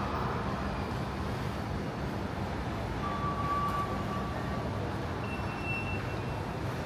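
Steady background noise of a large, echoing railway station concourse. A faint steady high tone sounds for a couple of seconds in the middle, and another, higher one comes in near the end.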